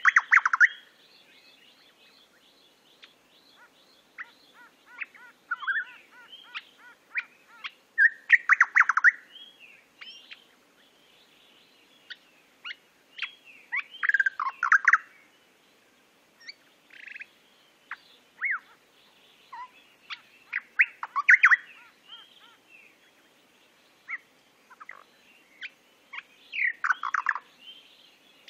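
Recorded birdsong: songbird chirps and short warbling phrases in irregular clusters, with louder bursts about a third of the way in, around the middle, and near the end.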